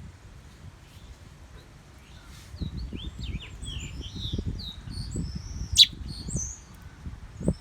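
A small bird chirping a quick run of short, high notes, starting about two and a half seconds in and going on for several seconds. A sharp click near the six-second mark is the loudest sound, with low rumbling and a thump near the end underneath.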